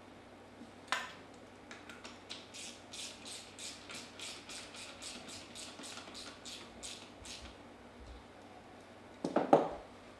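Hand-work on a Comet P40 diaphragm pump while its last diaphragm is fitted: a single click, then a quick even run of light clicks, about three or four a second, for several seconds. A heavier clunk of metal parts comes near the end.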